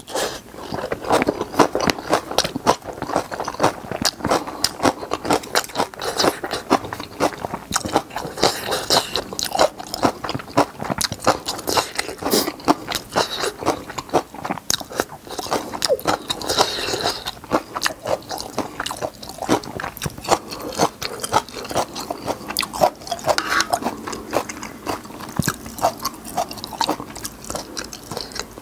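Close-miked ASMR eating: continuous rapid, wet chewing and crunching of spicy ramyun noodles and napa cabbage kimchi.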